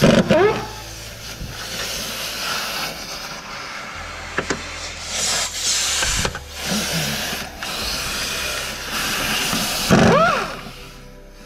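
Tools working on an engine during dismantling: scraping and clicks, with two short rising whines, one near the start and one near the end.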